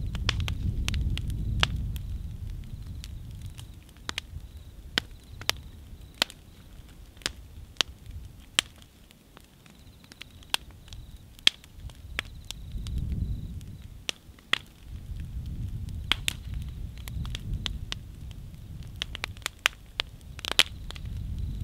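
A large wood fire crackling, with sharp irregular pops and snaps throughout. A low rumble rises and falls underneath, loudest near the start, around the middle and at the end.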